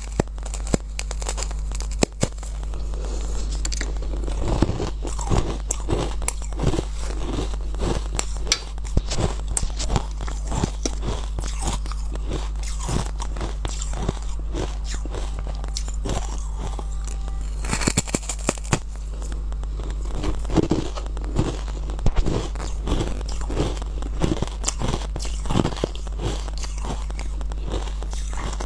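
Close crunching bites and chewing of a frozen disc of sweet honey ice, with many sharp cracks as pieces break off between the teeth. A steady low hum runs underneath.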